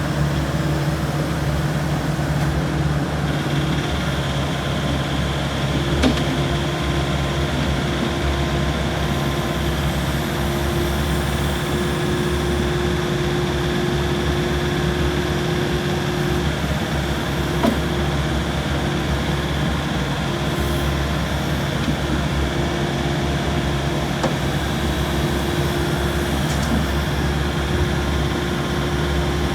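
Diesel engine of a Volvo ECR88D compact excavator running steadily at idle, with a couple of faint clicks.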